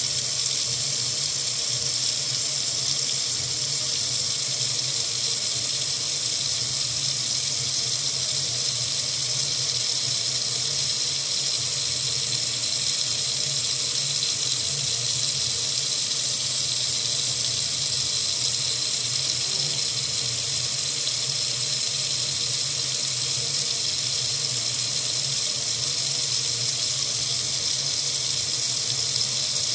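Water running steadily from a faucet: an even, unbroken rush of water that does not change.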